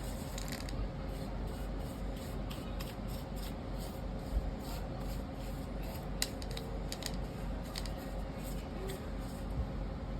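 Small metal tool work on a laptop: light, irregular clicks and scrapes, as a precision screwdriver turns and lifts small case screws, over a steady low hum.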